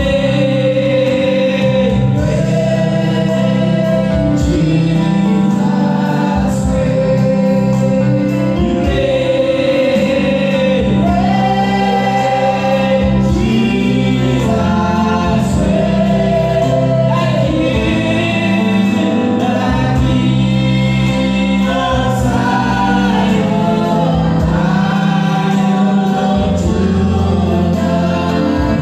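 Choir singing a gospel worship song over steady instrumental backing.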